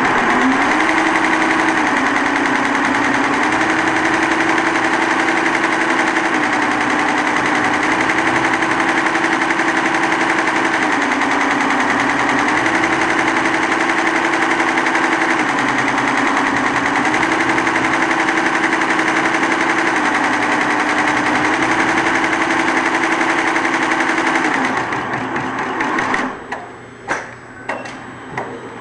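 Embroidery machine with a dual sequin device running at speed, stitching sequins onto fabric: a fast, steady mechanical chatter with a hum that steps between two pitches every second or two. The stitching stops about 25 seconds in, followed by a few separate clicks and knocks.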